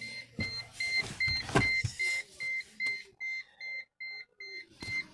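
Mercedes warning beeper sounding a steady run of short high beeps, about four a second, with a few knocks and thumps mixed in. The headlights are on, and the beeping is plausibly the car's lights-on warning.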